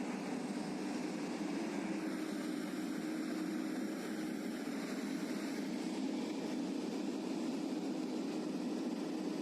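Steady, unbroken drone of a heavy machine's engine running on a piling site.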